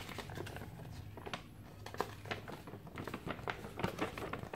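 Folded paper manual being unfolded and handled: scattered light crinkling and rustling of paper.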